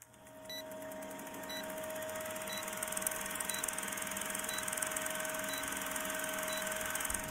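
Old-film countdown leader sound effect: a short high beep about once a second, seven in all, over the rattle of a film projector and a steady hum, growing louder over the first couple of seconds.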